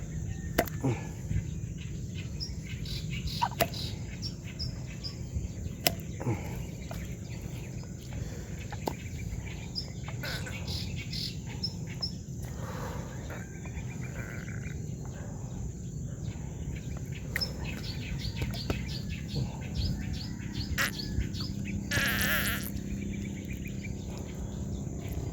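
Birds chirping outdoors over a steady low background rumble, with scattered clicks and a short rushing noise about 22 seconds in.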